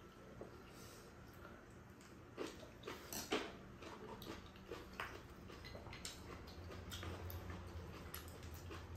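Light clicks and taps of chopsticks and a spoon against bowls while two people eat, loudest between about two and a half and three and a half seconds in.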